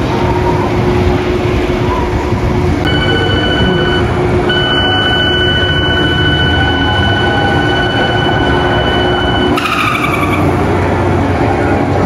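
Giant pendulum ride running on a test cycle: a steady mechanical rumble with a high whine that starts about three seconds in, breaks off briefly, then slides down in pitch near the end.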